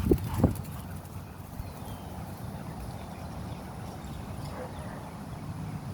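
Two short dog barks about half a second apart right at the start, then steady low outdoor background noise.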